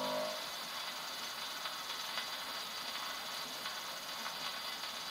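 Steel needle of a portable wind-up gramophone tracking a spinning 78 rpm shellac record after the song has ended: steady surface hiss with faint scattered clicks, the last sung and piano notes dying away in the first half-second.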